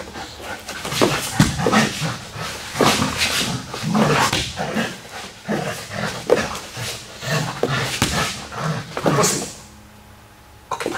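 Belgian Malinois making short, uneven excited vocal sounds while it grips and leaps for a bite tug, going quiet near the end as it settles.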